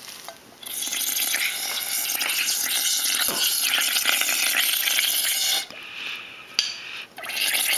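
Air blown through a straw into a bowl of soapy water, bubbling steadily. It breaks off for about a second and a half near the end, then starts again.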